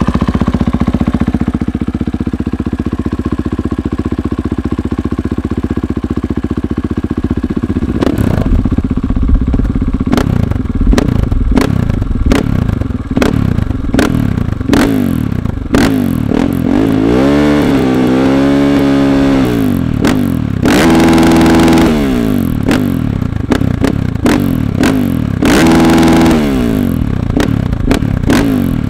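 Husqvarna FE 501 supermoto's single-cylinder four-stroke engine through an FMF exhaust, idling steadily at first, then blipped sharply again and again from about eight seconds in. Around the middle the revs rise and fall slowly, and twice they are held high for a second or so.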